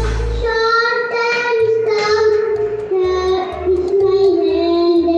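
A young boy singing a nursery rhyme into a microphone, holding long notes that slowly fall in pitch.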